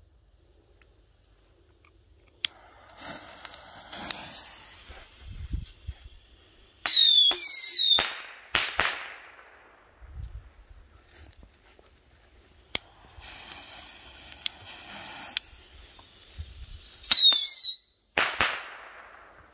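Two Black Cat Silver Fox bottle rockets fired one after the other. Each lifts off with a hiss, then gives a shrill, sweeping whistle, the loudest part, and ends a moment later in a sharp bang that echoes.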